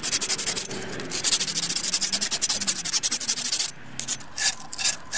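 120-grit abrasive cloth rubbing back and forth around the end of a copper pipe, cleaning the copper for soldering. Quick, even strokes thin out to a few separate strokes about three and a half seconds in.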